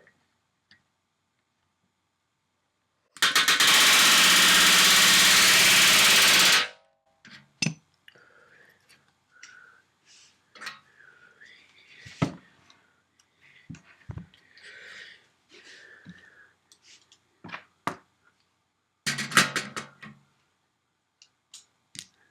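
Pneumatic rivet gun hammering solid aluminium rivets into the skin of an RV-7 horizontal stabilizer: one burst of about three seconds, then a shorter burst near the end, with tool and part handling clicks and knocks in between.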